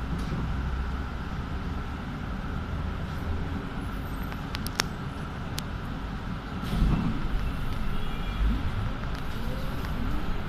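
Inside a city bus: the steady low rumble of the bus and the traffic around it, with a couple of sharp clicks about halfway through.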